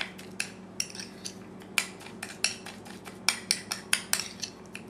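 Metal spoon clicking and scraping against a small ceramic bowl in quick, irregular strokes as garlic and coarse salt are mashed into a paste.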